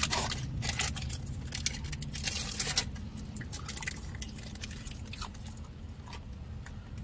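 Eating sounds: close chewing and biting with crackly rustles of food wrappers, busiest in the first three seconds and sparser after.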